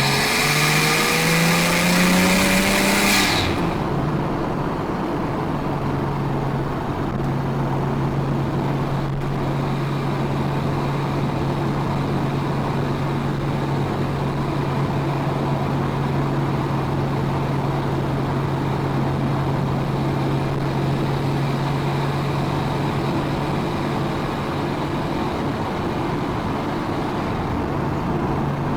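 Nissan Skyline R34 GT-T's turbocharged RB25DET straight-six through a full exhaust system, revs climbing under acceleration for about three seconds. The climb cuts off sharply as the throttle lifts, and the engine settles into a steady drone at constant speed.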